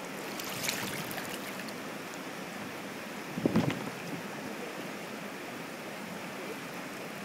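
River rapids rushing steadily over rocks, with a brief louder burst about three and a half seconds in.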